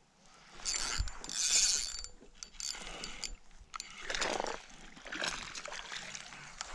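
A fishing reel being cranked in several quick spells, its gears whirring and clicking, as a hooked bass is reeled in with some splashing at the surface.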